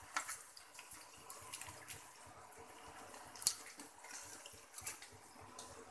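Tandoori chicken drumsticks sizzling on foil in the oven: faint, scattered crackles and pops of spitting juices and fat, with one sharper pop about three and a half seconds in.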